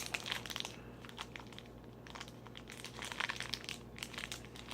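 Small plastic toy packaging crinkling and crackling as it is handled and opened, in many short irregular crackles, over a faint steady low hum.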